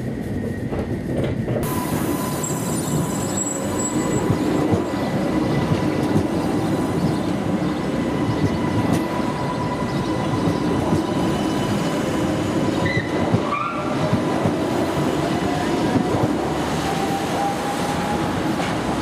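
Stuttgart DT8 light rail vehicle running on street track, its steel wheels squealing thinly on the rails over a steady rumble. Near the end a motor whine rises slowly in pitch as a train accelerates.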